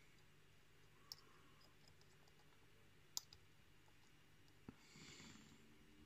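Faint metallic clicking of a dimple lock pick and tension tool working inside an Avocet Pioneer Plus brass euro cylinder: three sharp clicks, about a second in, about three seconds in (the loudest) and near five seconds, followed by a brief soft scrape.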